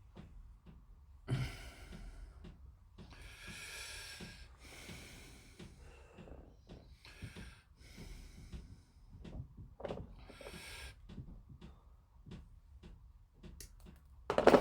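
A person breathing heavily through the nose close to the microphone, several separate breaths, with faint small clicks of plastic model parts being handled and one sharp knock at the very end.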